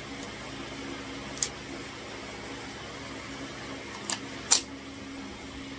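Ruger 10/22 rifle being handled, its magazine and action worked: a light click about a second and a half in, then two sharper metallic clicks close together later on, the second the loudest. A steady low hum runs underneath.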